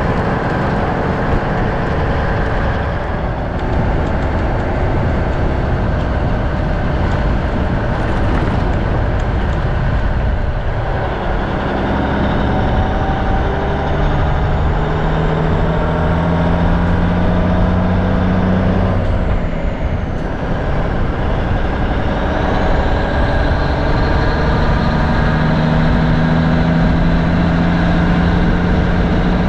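Cummins diesel of a 1984 Freightliner cab-over running under load as the truck pulls a loaded grain trailer, with wind and gravel-road noise at a mirror-mounted microphone. The engine note climbs, breaks off briefly about twenty seconds in, then climbs again.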